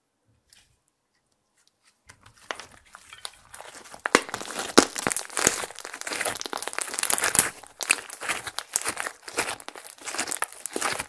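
Hands squeezing and folding thick beige slime (clear slime with makeup mixed in), giving a dense, irregular run of wet crackles and sharp pops. It starts about two seconds in after near silence.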